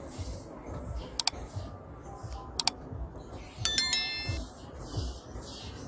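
Background music with a steady low beat, with a few sharp clicks and a bright ringing chime about four seconds in.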